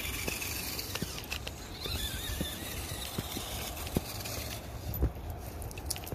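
Footsteps crunching through snow at a walking pace, about one a second, over the faint electric-motor whine of a Redcat Gen7 RC crawler driving along the trail.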